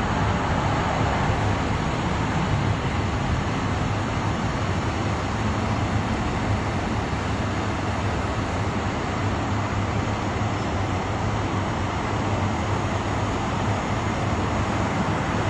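Steady low rumble of idling vehicle engines under a constant wash of street noise.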